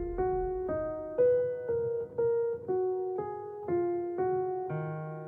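Background music: a keyboard melody of single notes, about two a second, that ends on a held chord fading away near the end.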